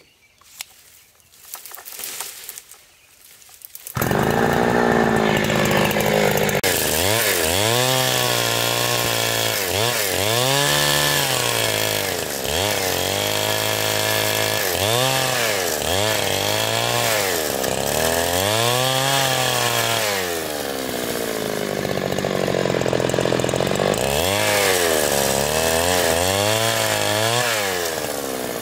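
Petrol chainsaw that comes in suddenly about four seconds in. It then runs with its engine pitch rising and falling over and over, every second or two, as it is revved and loaded in cutting.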